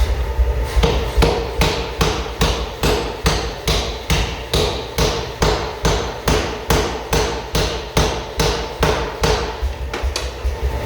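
Hammer blows on hot axe steel at the anvil, an even run of sharp ringing strikes about three a second, forging the freshly forge-welded axe head back toward shape.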